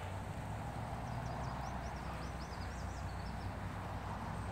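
Steady outdoor background noise with a low hum, and a bird giving a quick run of short, high-pitched chirps from about a second in to past halfway.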